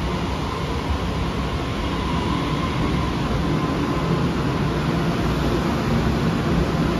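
TRA TEMU1000 Taroko Express tilting electric train pulling out of the station: a steady running rumble with a low hum, a faint thin whine over the first few seconds, growing slightly louder.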